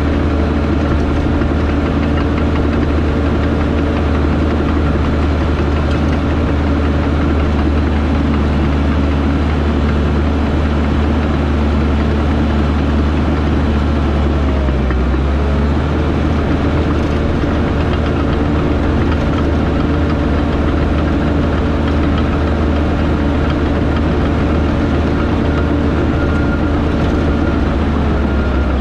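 Heavy construction-equipment diesel engine running steadily under work, loud and even, with a brief dip in its note about halfway through.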